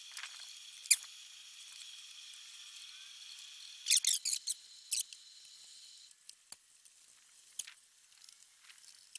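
A melamine-foam magic eraser rubbing on the plastic case of a CRT monitor, giving short sharp squeaks: one about a second in, a quick cluster around four seconds and a few fainter ticks after. A faint steady high-pitched tone sits underneath for the first two-thirds.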